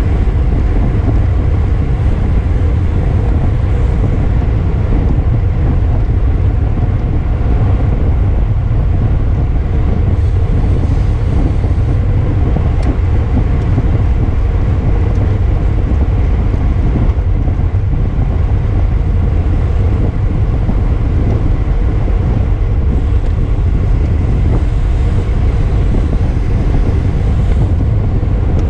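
Wind buffeting the microphone of a camera riding on a racing bicycle: a loud, steady low rumble.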